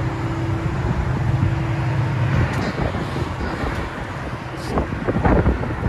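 Infiniti G37's 3.7L V6 idling steadily through its aftermarket exhaust, the steady engine note dropping out about halfway through. Wind then buffets the microphone in gusts, strongest near the end.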